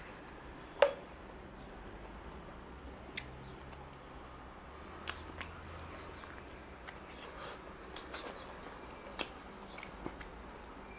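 Close-miked eating sounds of mutton curry and rice: chewing and wet mouth noises with scattered sharp clicks, and one loud clink with a short ring about a second in.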